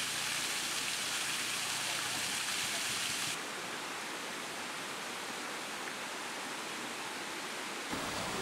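Small waterfall pouring from a stone culvert and splashing onto rocks, a steady rush of water. About three and a half seconds in it cuts to a quieter, duller hiss.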